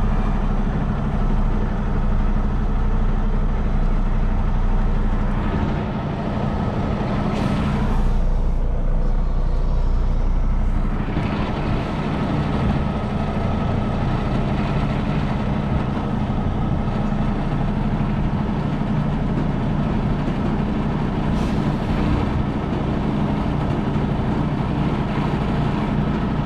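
Diesel engine of a 2023 Kenworth T680 semi truck running steadily at low speed, heard from inside the cab while the rig is being backed into a spot. Two brief hisses stand out over the drone, about seven seconds in and again after twenty seconds.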